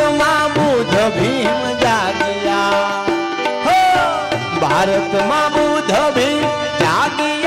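Devotional bhajan: a man singing with gliding, ornamented phrases to a harmonium's held chords, over a steady hand-drum beat.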